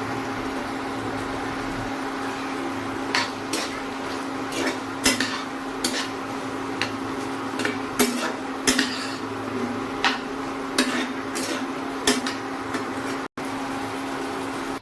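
A metal utensil knocking and scraping against a cooking pan, about a dozen sharp clinks at irregular intervals starting about three seconds in, over a steady hum.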